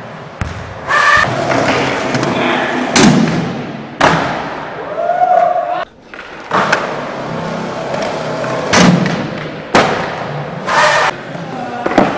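Skateboard tricks on a smooth concrete floor: wheels rolling, with about half a dozen sharp board slaps and landings that echo off the walls of the hall.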